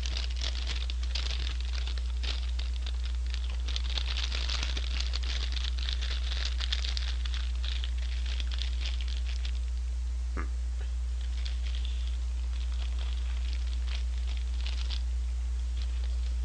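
Paper and plastic fries packaging crinkling and rustling as it is handled and crumpled, in irregular bursts of fine crackle, with a single sharp click about ten seconds in.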